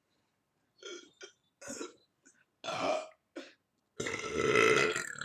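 A person burping on purpose: a few short sounds, then a long, loud burp starting about four seconds in.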